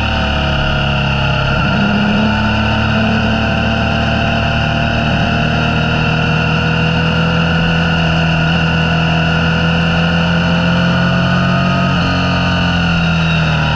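Motorcycle engine running under way, with wind and road noise. The engine pitch climbs slowly and drops back suddenly about twelve seconds in, as with a gear change.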